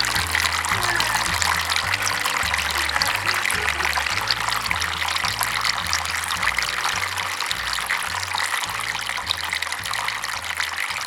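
Water pouring and splashing steadily down a four-tier waterfall, under background music with a stepping bass line.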